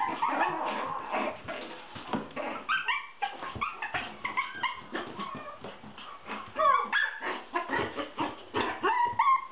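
Six-week-old Shichon puppies yipping, barking and whimpering as they play, many short high calls overlapping, with scattered knocks and scuffles.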